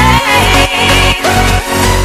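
Background electronic dance music with a heavy bass beat, about two beats a second, under held synth notes.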